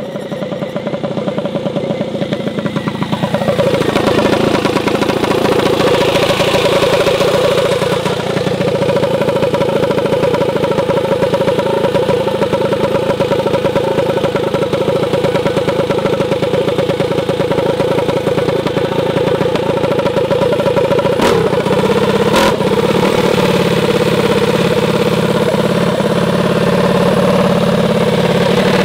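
Mini bike engine running. Its pitch falls steeply over the first few seconds as the revs drop, then it runs steadily, with two sharp clicks about a second apart a little over 20 seconds in.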